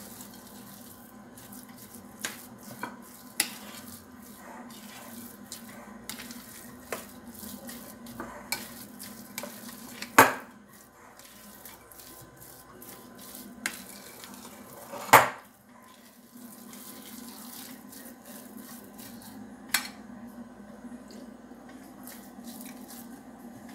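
A metal spoon stirring a thick mashed-potato-and-rice batter in a glass bowl: soft scraping with light clinks of the spoon against the glass, and two louder knocks about ten and fifteen seconds in.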